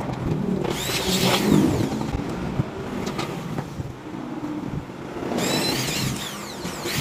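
Electric hand drill running in two bursts, about a second in and again from about five and a half seconds, its motor whine rising and falling as it bores into an aluminium screen frame.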